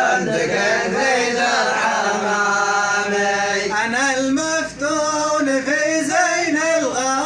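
A man's voice chanting a nasheed unaccompanied: he holds one long steady note for about three seconds, then ornaments it, the pitch stepping up and down in wavering turns with two short breaks.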